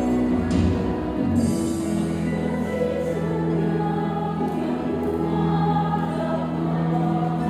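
Church choir singing a hymn, with long held notes.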